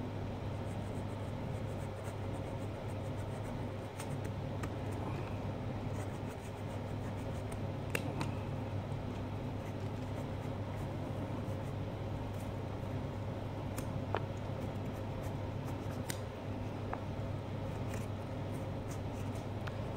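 Small carving knife scraping and cutting into pumpkin flesh, with a few sharp little clicks, over a steady low background hum.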